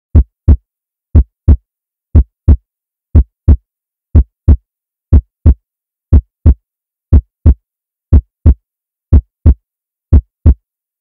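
Heartbeat sound: a steady lub-dub of paired low thumps, about one beat per second.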